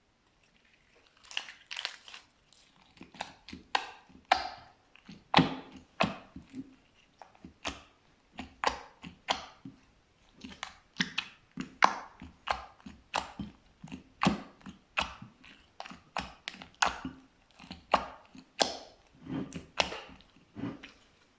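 Slime being squished and mixed, giving a string of wet, sticky pops and crackles about two a second, starting about a second in.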